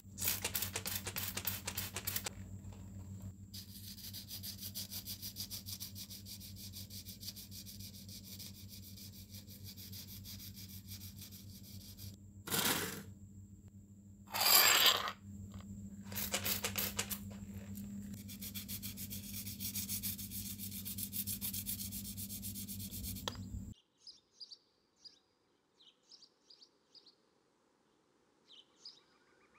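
A small power tool runs with a steady hum while it sands or brushes the metal, with scratchy rubbing and a few louder short scrapes; it stops abruptly about three-quarters of the way through. Faint bird chirps follow.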